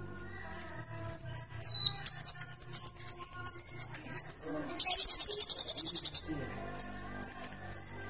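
Kolibri wulung, a small sunbird, singing: high, quick chirps and sweeping notes, a rapid run of repeated notes, then a buzzy trill in the middle of the song before more chirps. Faint background music lies under it.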